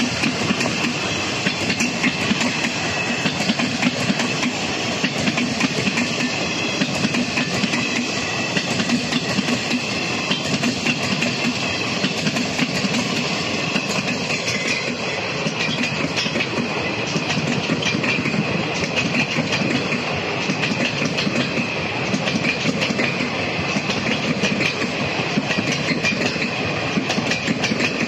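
Indian Railways passenger coaches of the Sabarmati Express passing at speed through a station, wheels on the rails making a steady rapid clickety-clack over a continuous rumble.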